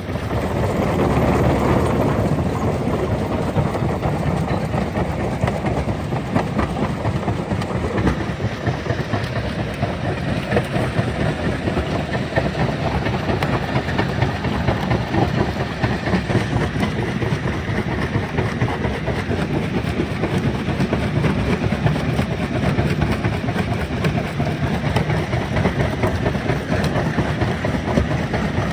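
Stone crusher running, a continuous dense rattle and grind of rock being broken, with no pause.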